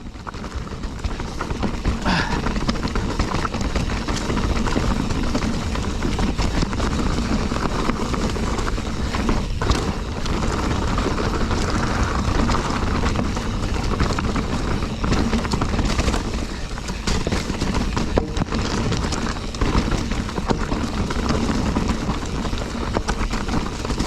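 Specialized FSR full-suspension mountain bike clattering over a rough, rocky trail at speed: the frame, chain and tyres rattle with constant knocks and jolts. Wind rushes over the microphone throughout.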